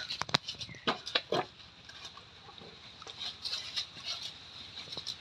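Cattle shifting about in a pen: several sharp knocks and clicks in the first second and a half, then softer scuffing, over a steady thin high-pitched hum.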